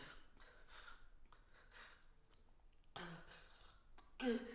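A man's faint, shaky panicked breathing, with a short voiced gasp about three seconds in.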